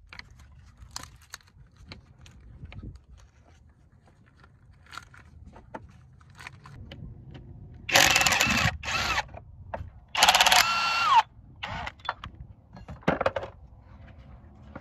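A cordless power tool spinning a socket to unscrew the bolt of a wiring harness holder, in two short runs about eight seconds in and again two seconds later, the second ending with a falling whine as the motor stops. Light clicks and rattles of parts being handled come before.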